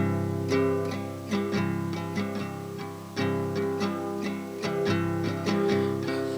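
Acoustic guitar strumming and picking chords in a steady rhythm, an instrumental passage with no singing.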